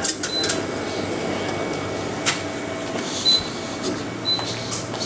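Convenience-store background: a steady hum with three short, high-pitched electronic beeps and a few sharp clicks. Near the start, hot water runs from a water boiler's tap into a steel mug.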